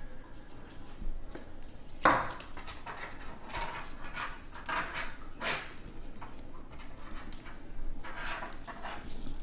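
Handling sounds of a 3D-printed plastic face-shield headband being threaded with elastic cord: irregular light rustles and plastic scrapes, a second or two apart.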